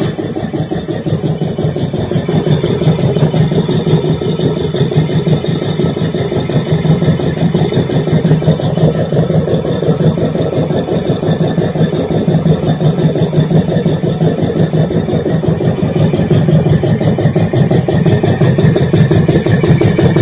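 FB-2105 reciprocating piston air compressor block running steadily with a fast, even pulse while its new piston rings are run in against the cylinders.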